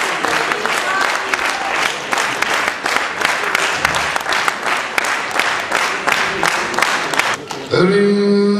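Audience applauding steadily. Near the end the clapping gives way to a man's voice over a microphone, starting on a long held note.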